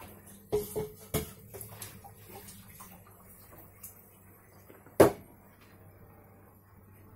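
Sharp taps of a white wagtail's beak on a hard kitchen counter as it pecks at and handles a superworm: a few quick clicks about half a second to a second in, lighter ticks after, and one loud knock about five seconds in.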